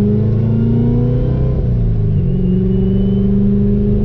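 2019 Corvette C7 Z06's supercharged 6.2-litre V8 pulling under acceleration, its note rising, then dropping sharply about two seconds in before holding a steadier, slowly rising note.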